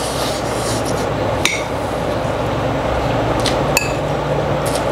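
A metal spoon clinking against a ceramic plate: one sharp ringing clink about a second and a half in, then two more close together near the end, over steady background noise.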